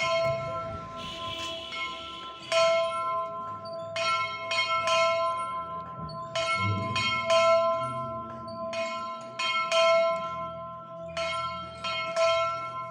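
A metal bell struck over and over, about two strokes a second in runs with short pauses, each stroke ringing on with the same few steady tones. It is rung to mark weeding time, a call to work.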